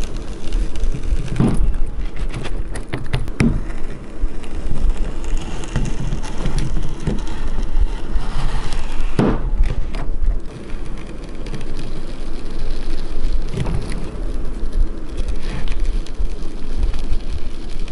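Red-hot knife blade pressed through a hard plastic fishing lure: a crackling hiss over a steady low rumble, with a few sharp knocks as the blade works through the plastic.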